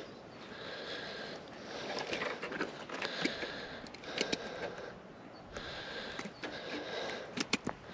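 Close nasal breathing in slow, repeated breaths with a faint whistle, and a few small handling clicks near the end.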